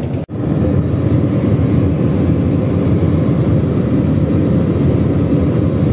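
Steady engine and airflow noise of a jet airliner in flight, heard inside the passenger cabin. The sound cuts out for an instant just after the start, then runs on evenly.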